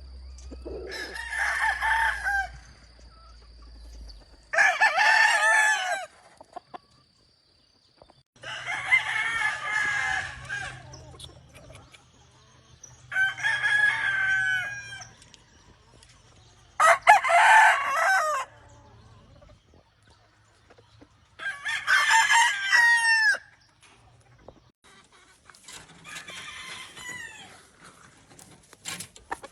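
Gamefowl roosters crowing, about seven crows one after another with pauses between them, some louder than others.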